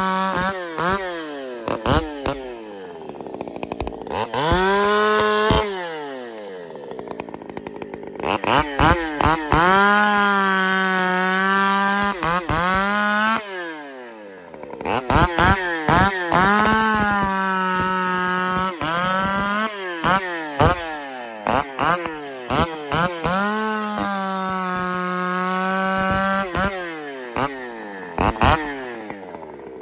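Two-stroke chainsaw revved up to full throttle and held there for a few seconds at a time, dropping back toward idle in between, about half a dozen times.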